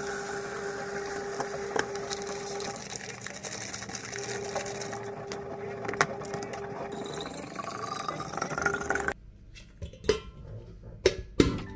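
Clicks and knocks of a rice-filled clear plastic storage container being handled and its lid fitted, over a steady low hum. After about nine seconds the hum stops and a few sharper clicks follow as the lid of a glass jug is handled.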